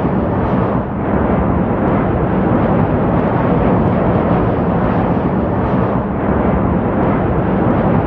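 Steady, loud roar of a jet airliner in flight, a deep rumble with no let-up.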